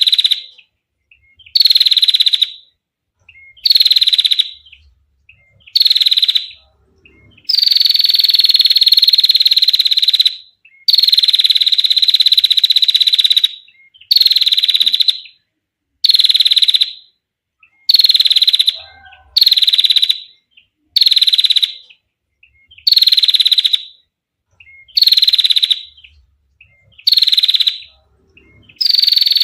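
Female prinia (prenjak) giving its long, dry trill over and over: a string of fast high buzzy trills about a second each, two of them stretched to about three seconds near the middle, with short pauses between.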